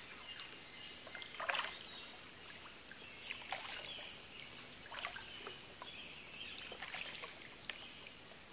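Soft splashes and lapping of water, one every second and a half to two seconds, over a steady high hiss.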